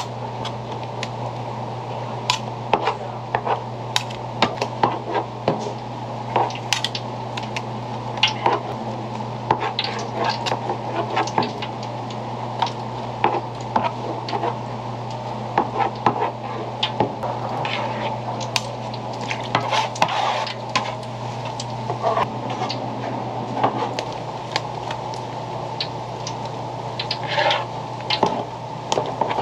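Metal spatulas scraping and tapping on a plastic cutting board as fish cake paste is spread onto slices of bread, with frequent short clicks. A steady low hum runs underneath.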